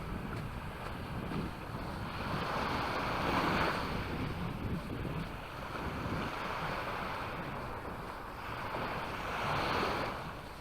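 Sea waves breaking on the beach, the wash swelling twice and falling back between, with wind rumbling on the microphone.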